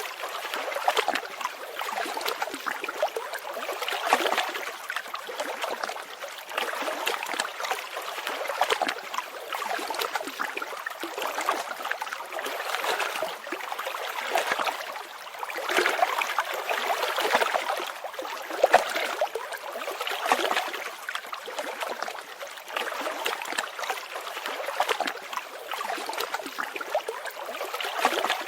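Stream water running and trickling, a continuous, even babbling with no pause or change.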